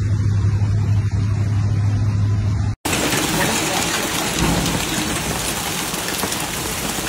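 A steady low hum, then after an abrupt cut about three seconds in, the even hiss of heavy rain pouring down.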